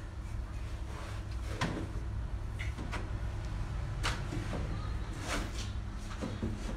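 A few light knocks and clicks of objects being handled, spread over several seconds, over a steady low hum.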